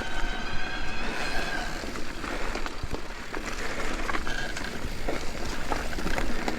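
Mountain bike rolling over a dirt trail: tyre rumble and wind noise with frequent small clicks and rattles from the bike. A high steady squeal sounds near the start and again about four seconds in.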